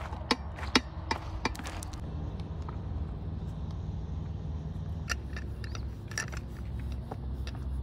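Metal cooking pots and utensils clinking and knocking as they are washed and handled at the water's edge. There are a few sharp knocks in the first two seconds and more a little after halfway, over a steady low rumble.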